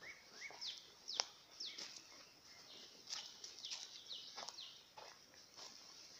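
Songbirds calling: a few quick rising whistled notes at the start, then groups of high, sharply falling notes, twice. Under them are footsteps on dirt with scattered sharp clicks, the loudest about a second in.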